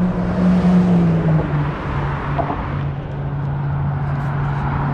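Car driving: a steady engine hum over road noise, dropping slightly in pitch about a second and a half in, then holding steady.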